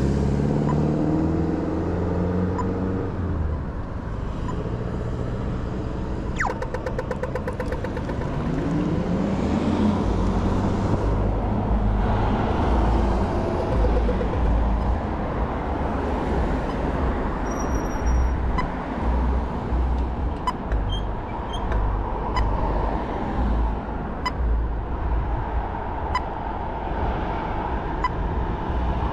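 Kaabo Wolf King GT electric scooter riding at speed: wind buffeting the chest-mounted mic over steady road and tyre noise, with a whine rising and falling in the first few seconds. A brief rattle of clicks comes about six seconds in, and faint sharp ticks about once a second through the second half.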